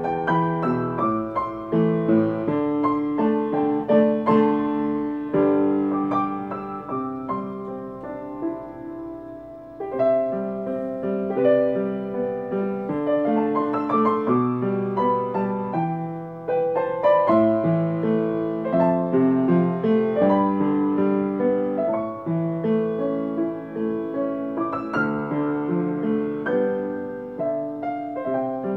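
Solo piano playing a slow arrangement of a Mandarin pop song, melody over sustained chords. The playing softens about eight seconds in and picks up again near ten seconds.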